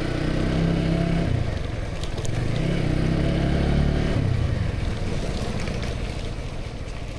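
Motorcycle engine running while riding, heard through an action camera's built-in mic on the helmet chin. The engine pitch rises for a couple of seconds as the bike speeds up, drops sharply about four seconds in, and runs lower after that.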